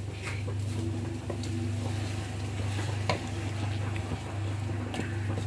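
A wooden spoon stirring chunky chicken and vegetable stew in an aluminium saucepan, with a few light knocks of the spoon against the pot, the clearest about three seconds in. A steady low hum runs underneath.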